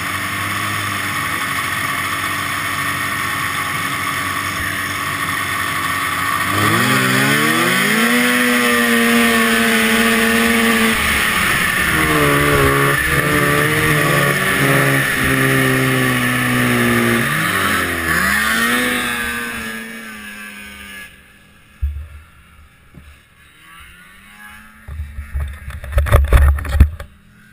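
Vintage two-stroke snowmobile engine, a 1974 Rupp Nitro 340, idling and then revving hard as the sled launches off the start line. It runs at high revs with a wavering pitch, falters and dies about twenty seconds in, a stall blamed on a pinched fuel line. A few loud knocks follow near the end.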